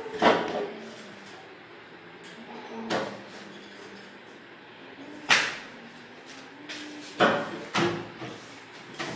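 Sharp knocks and clatters, five in all, a second or more apart, two of them loud: a child clambering on a metal-legged chair on a hard floor and hanging from a bar hung on a chain.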